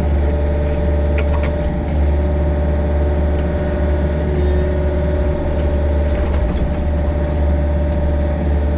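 Compact excavator's engine running steadily at an even speed, with a couple of light clanks about a second and a half in.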